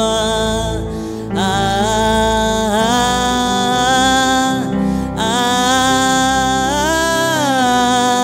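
Slow gospel worship music: a voice sings long notes that glide from pitch to pitch, with no clear words, over sustained instrumental backing.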